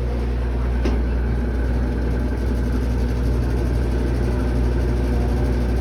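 Brastemp BWK12 12 kg washing machine running with a loud, steady low drone, the noise it is known for. A single short click about a second in.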